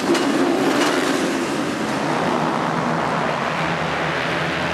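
A full gate of 450cc motocross bikes at full throttle, launching off the start and accelerating together down the start straight. Many engines blend into one dense, steady wall of engine noise.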